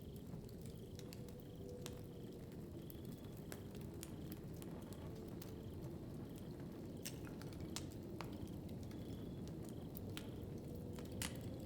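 Wood fire burning in a fireplace: a steady low rumble of flames with scattered sharp crackles and pops, a few louder pops about seven seconds in and near the end.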